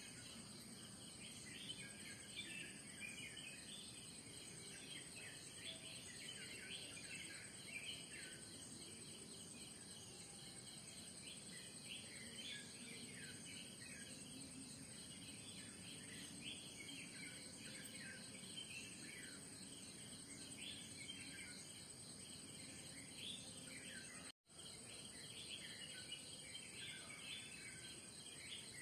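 Morning outdoor ambience: many small birds chirping constantly over a steady high-pitched insect drone. The sound cuts out for an instant about 24 seconds in.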